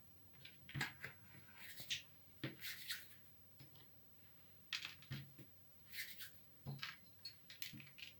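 Hands working soft cookie dough and pressing it into seeds: faint, scattered rustling with a few light taps.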